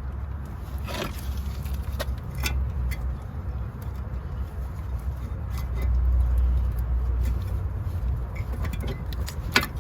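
A steady low rumble that swells about six seconds in, with a few light metallic clicks and clinks of hand tools on the brake caliper, the sharpest near the end.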